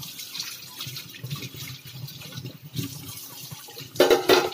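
Water running and splashing in a stainless-steel kitchen sink as dishes are scrubbed and rinsed, with a sudden louder burst about four seconds in.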